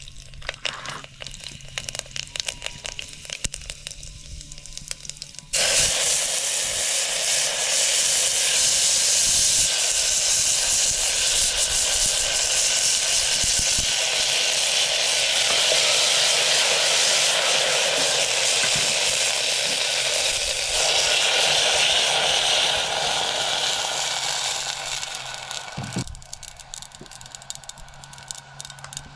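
Food frying in a hot pan. A few seconds of light crackling give way, about five seconds in, to a sudden loud, steady sizzling hiss that cuts off a few seconds before the end, leaving light crackling again.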